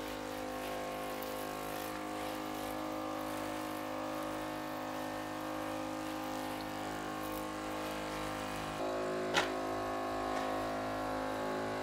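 Steady hum of a small motor running, with the light hiss of detergent being sprayed from a spray lance onto a tractor wheel. The hum shifts slightly near the end, and there is one short click.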